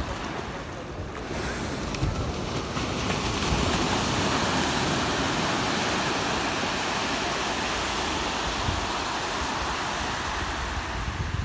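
Sea surf washing onto a sandy beach: the hiss of a breaking wave swells about three seconds in and eases near the end. Wind buffets the microphone.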